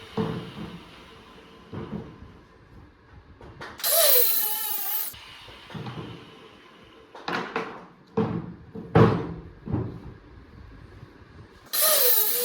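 Wooden workshop knocks and thuds, with a quick run of knocks between about seven and ten seconds in. Twice, at about four seconds and near the end, comes a loud hiss of a second or so with a falling whine in it.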